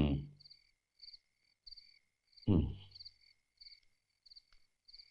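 Crickets chirping in an even, repeating pulse, a couple of high chirps a second. Two short vocal sounds with falling pitch break in, one right at the start and one about two and a half seconds in, and are the loudest things heard.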